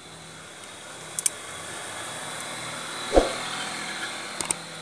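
Light metallic clicks of pliers working on a Honda Civic clutch master cylinder's pushrod and retaining lock, with a low thump about three seconds in, over a steady vehicle-like rumble that slowly swells.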